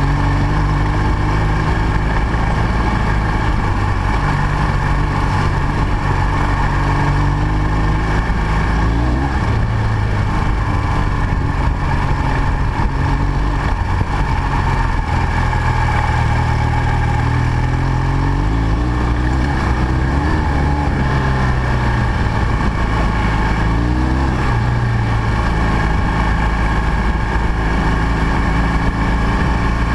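BMW R1200 GS flat-twin boxer engine running under way, its note dipping and rising with throttle changes a few times, over a steady rush of wind and road noise.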